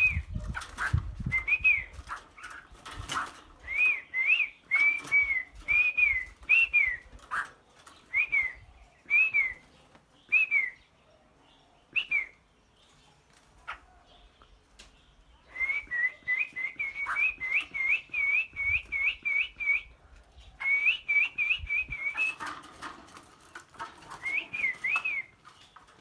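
Songbirds singing in short, repeated whistled phrases. They go quiet briefly about halfway through, then come back with a fast run of notes. A few low bumps sound near the start.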